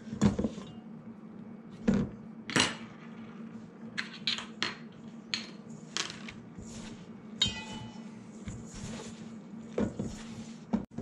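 A fork clinking and scraping against a stainless steel mixing bowl as flour and egg are worked into pasta dough: an irregular string of short sharp clicks and knocks. Partway through the fork is set down and the dough is worked by hand in the bowl.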